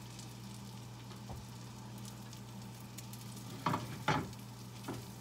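Puffball-mushroom French toast sizzling in butter in a frying pan, over a steady low hum. A spatula scrapes against the pan twice a little past halfway, and once more lightly near the end.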